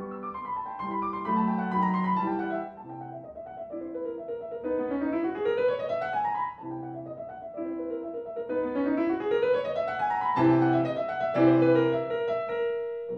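Solo piano music: runs of notes that climb and then fall back, twice, over held low chords.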